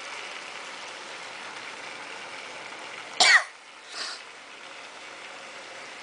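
Steady whir and rattle of a long Lego train running on plastic track, driven by four train motors. A person coughs loudly once about three seconds in, with a softer second sound a second later.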